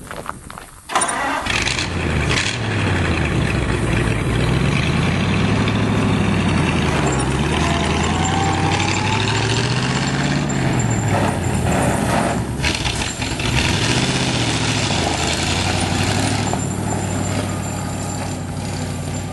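1941 Ford fire truck engine starting about a second in, then running and being revved up and back down several times.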